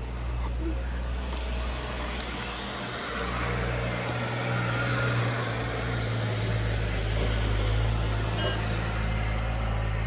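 A motor vehicle's engine running with a steady low hum under road noise, growing louder about three seconds in.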